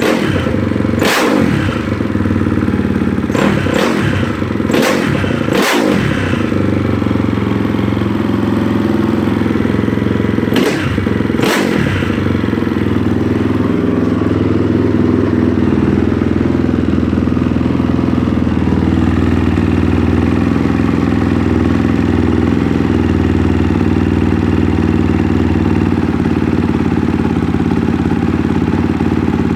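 2005 Honda CRF450R's four-stroke single-cylinder engine, freshly rebuilt and running on its first start in almost a year. It is blipped about seven times in the first twelve seconds, revving up and falling back each time, then settles into a steady idle.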